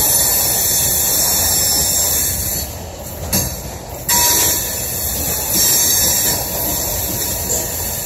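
Loaded coal cars rolling past, their steel wheels grinding and hissing against the rail in a steady, high wheel-friction screech over a low rolling rumble. The screech eases for a moment midway, then comes back abruptly.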